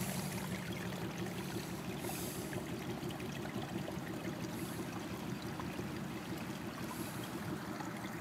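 Steady running water: rainwater flowing out of a French drain's corrugated outlet pipe and trickling across gravel. The strong, even flow is a sign that the drain is working properly.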